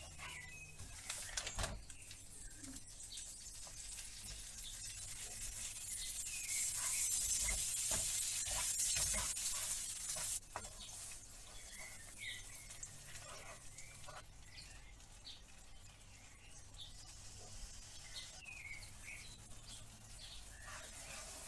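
Chopped walnuts in hot caramel sizzling in a nonstick pan while a wooden spoon stirs and scrapes them, with scattered knocks of the spoon. The sizzle swells to its loudest about seven to ten seconds in and cuts off suddenly, then carries on quieter as butter and condensed milk are stirred in. Short high chirps sound here and there throughout.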